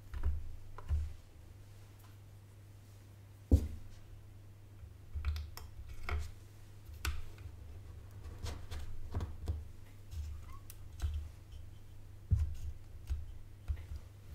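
Irregular small clicks and taps of hand tools working on a graphics card's circuit board while new capacitors are fitted, with one sharp click about three and a half seconds in, over a steady low hum.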